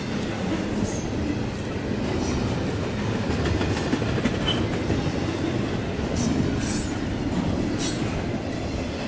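Double-stack intermodal container train rolling past close by: a steady heavy rumble of steel wheels on rail, with brief high wheel squeals about a second in and twice more in the second half.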